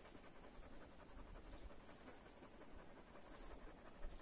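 Near silence: faint outdoor background hiss with a few soft low rumbles.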